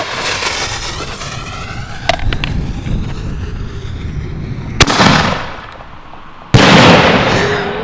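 DP salute shell being fired from a mortar rack: the fuse sparks and hisses as it is lit, a sharp lift-charge crack sends it up about five seconds in, and a second and a half later the salute breaks overhead with a very loud report that rolls away in a long echo.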